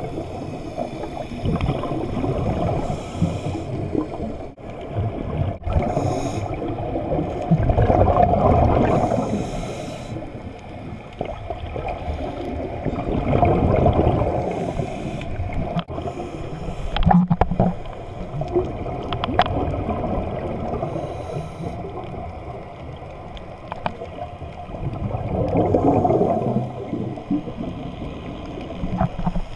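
Scuba divers breathing through their regulators underwater: the exhaled bubbles gurgle and rush in swells every several seconds over a steady low water noise, with a few short knocks.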